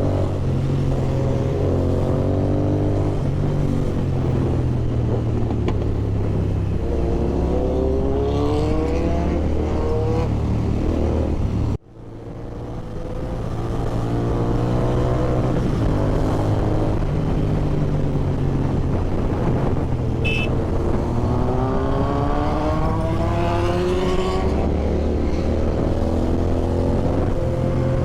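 Kawasaki Z900's inline-four engine with an Austin Racing exhaust, heard while riding: the engine pulls up through the revs with a rising pitch, eases off, and rises again later on. Just before the halfway point the sound drops out suddenly and fades back in over a couple of seconds.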